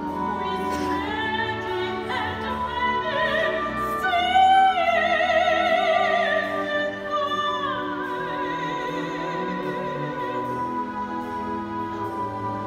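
Operatic singing with wide vibrato, accompanied by a live orchestra. About four seconds in the voice swells to its loudest on a held high note, then descends while the orchestra holds a sustained chord.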